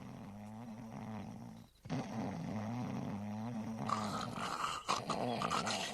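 A man snoring loudly in his sleep, voiced as cartoon snoring: long, low, rattling snores. One breaks off a bit under two seconds in, and the snores that follow are rougher and noisier.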